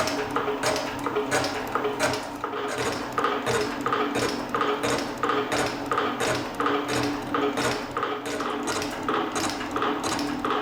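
Elliott 10M metal shaper running at speed and taking light 0.5 mm cuts on a brake caliper carrier lug. Its ram strokes give a regular metallic clatter, about two a second, over a steady motor hum.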